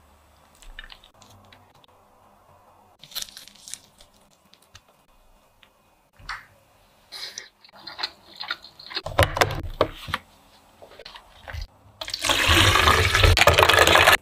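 Scattered soft handling sounds of food and dishes, then, about twelve seconds in, a loud splashing as ice cubes and liquid are poured into a plastic pitcher.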